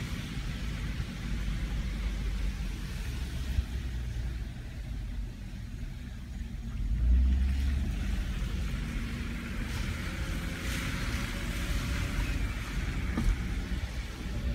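Inside a moving vehicle's cabin: steady low engine and road rumble with tyre hiss on wet pavement, swelling louder for a moment about seven seconds in.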